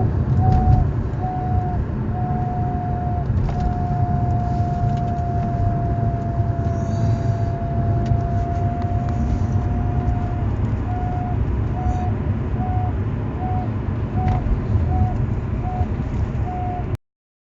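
A 2010 BMW E92 on the move at about 20 mph, with an odd whine riding over the road and engine rumble. The whine comes as short pulses about every half second, holds as one continuous tone for several seconds in the middle, then goes back to pulsing; it is the noise that sets in only above 20 mph. The sound cuts off suddenly just before the end.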